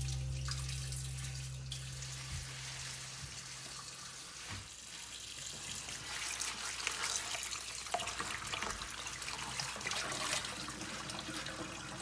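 Kitchen tap running into a stainless steel sink while bok choy leaves are rinsed and swished by hand in a wooden bowl of water, with small splashes and drips.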